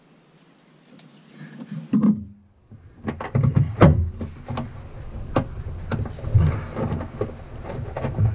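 Hand riv-nut setting tool being placed into a hole in the car's sheet-metal panel: a thump about two seconds in, then a string of sharp metal clicks and knocks as the tool is handled and seated.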